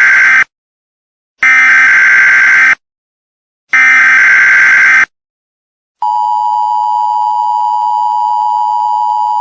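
Emergency Alert System SAME header data bursts: harsh buzzy screeches about a second long, the first already under way, then two more with short gaps between them. About six seconds in, the steady two-tone EAS attention signal starts and holds. This is the standard opening of an emergency alert broadcast.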